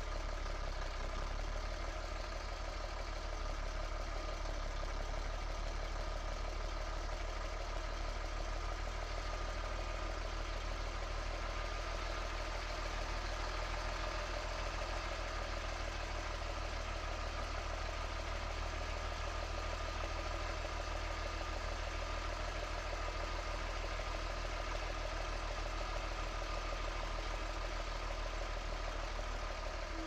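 Zetor Crystal 16145 Turbo tractor's turbocharged six-cylinder diesel engine running steadily at low idle while the tractor creeps slowly.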